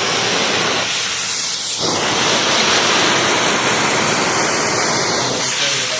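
Loud, steady hissing rush of floor-care equipment working the wet travertine tile during polishing.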